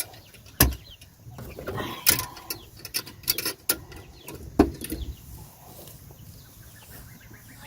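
Young olive egger chickens clucking and peeping among a few sharp knocks and rattles from coop handling; the loudest knock comes about four and a half seconds in.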